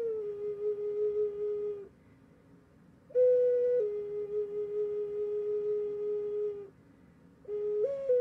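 Flute playing a slow melody of long held notes: each phrase steps down a note and holds it, with two short pauses between phrases and a new phrase rising near the end.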